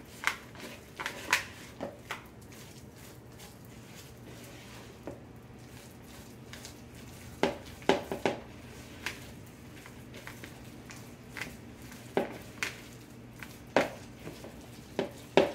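A spoon stirring thick dough in a mixing bowl: irregular soft knocks and scrapes of the spoon against the bowl, a few of them ringing briefly.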